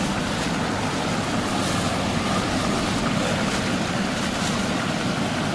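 Water rushing steadily out of a concrete outfall pipe through a metal grate and splashing into a lake: an even, unbroken rush of water.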